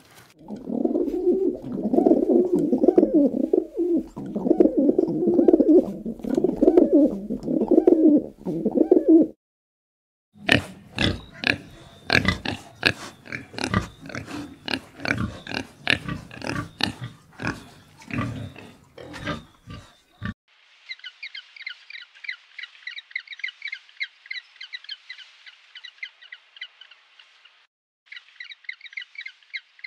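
A low, pulsing animal call lasting about nine seconds, then, after a short silence, a run of sharp clicks and knocks for about ten seconds, then a high, fast trill that breaks off briefly near the end.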